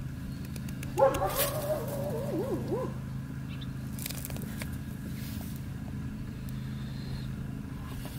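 A knife slicing into a green wooden stake in a few short cutting strokes while a stake notch is carved. About a second in comes a short, wavering, whining call that rises and falls, over a steady low hum.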